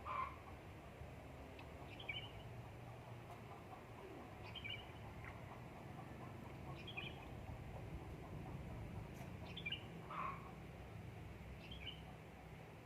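A bird repeating a short, high chirping call about every two to three seconds, over a steady low background hum. Twice, near the start and about ten seconds in, a lower and louder call stands out.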